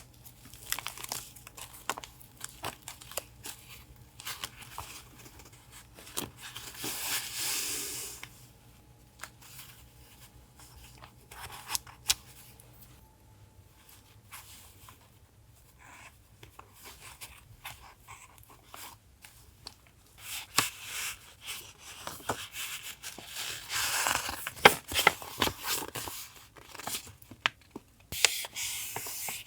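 Collage paper being handled and torn, with scattered light taps and rustles. Longer tearing or rustling passages come about seven seconds in and again through the last third.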